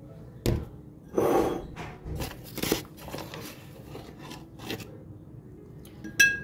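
Kitchen handling sounds: a sharp knock, then a brief scraping rustle, scattered clicks, and a short ringing clink near the end.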